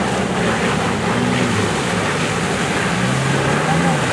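Off-road 4x4 engines revving as they drive through deep mud, the engine pitch rising and falling several times over a steady rushing noise.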